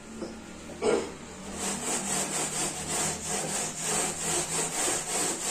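Hand scrubbing of built-up grease on the underside of a kitchen chimney hood, in a steady back-and-forth of about three strokes a second. A single knock comes about a second in, before the scrubbing settles into its rhythm.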